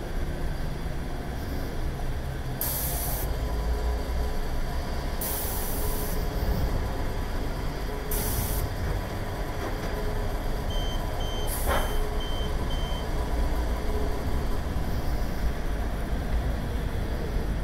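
Petrol pump dispensing fuel into a motorcycle's tank: a steady hum over low traffic rumble. Four short hisses cut in, and around the middle there is a quick run of about five short beeps.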